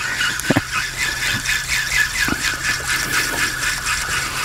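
Spinning reel running with a fast, even rattle of clicks over a steady whir.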